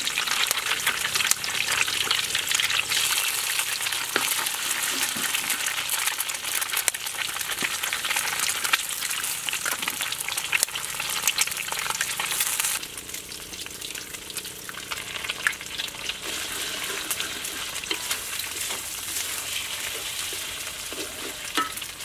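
Egg frying in hot oil with chopped garlic and spring onion in a wok, a dense crackling sizzle, stirred with a wooden spatula. About halfway through the sizzle drops suddenly to a quieter level and carries on.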